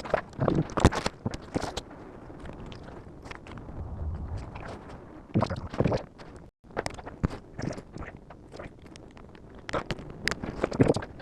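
Irregular clicks, knocks and scraping of hands working on car wiring and plastic connectors.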